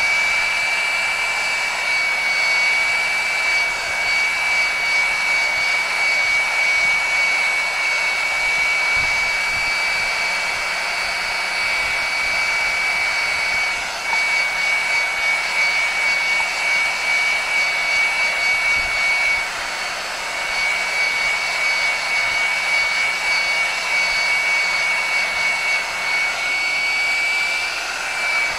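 Heat gun running steadily: a rush of blown air with a steady high whine from its fan motor, dipping briefly twice.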